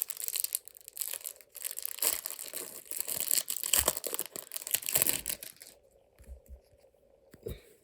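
A foil trading-card pack wrapper is torn open and crinkled for about six seconds. After that come a few soft taps.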